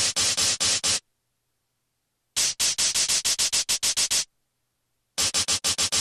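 Synthesizer playing fast staccato phrases of short, buzzy notes, about six a second, with silent gaps between the phrases. A 'thick' version of the sound alternates with a 'thin' one, the thin one in the middle phrase.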